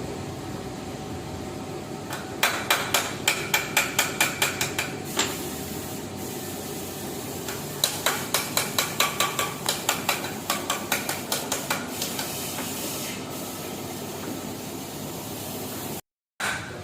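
Hammer blows on metal with a ringing tone, in two quick runs of about four to five strikes a second, with a pause between them, over a steady hiss.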